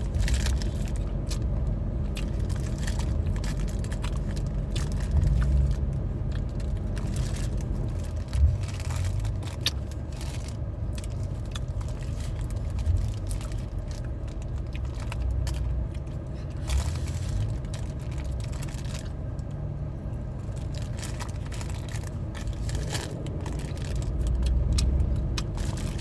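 Someone eating a fish fillet burger: bites, chewing and scattered wrapper rustles and clicks over a steady low rumble.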